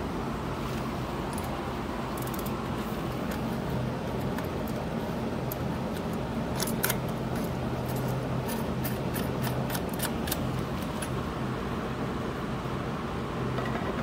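Light metallic clicks and clinks of bicycle cassette sprockets and the lockring being slid onto the rear hub and seated by hand, scattered through the middle stretch, over a steady low hum.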